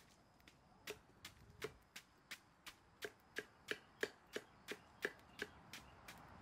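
Knife chopping a banana stem into pieces against a wooden log, a steady run of quick chops about three a second.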